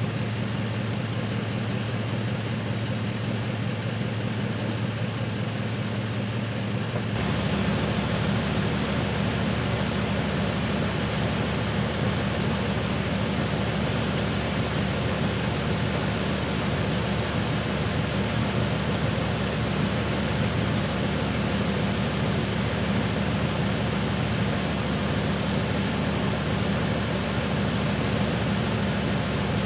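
Truck engine idling steadily, with a low even hum. About seven seconds in, a steady rushing noise comes in suddenly over it, and the whole sound gets a little louder.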